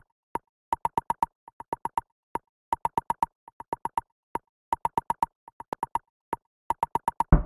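Intro logo sound effect: short, pitched plopping blips, all on one note, in quick rhythmic clusters of three to five with silent gaps between. Near the end, drum-led music starts.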